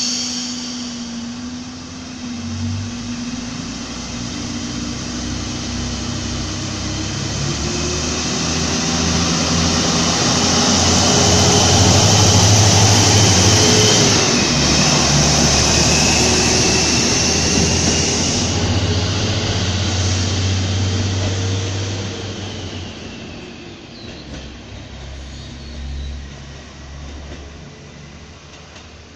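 KiHa 25 diesel railcar pulling out from a stop. Its diesel engine idles, then revs up as the train accelerates past, with the engine note rising in pitch. The engine and wheels on the rails are loudest about halfway through, then fade as the train moves away.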